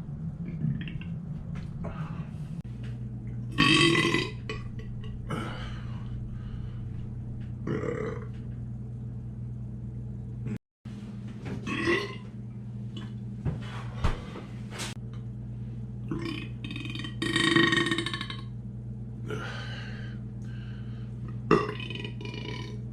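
A man belching over and over: about five loud burps with pauses between them and smaller ones in between. The longest and loudest burp comes about two thirds of the way through.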